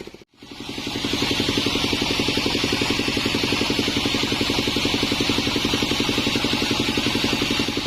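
Sawmill bandsaw machinery running: a steady, fast rhythmic engine-like pulsing with an even hiss above it. It drops out for a moment just after the start, then runs on steadily.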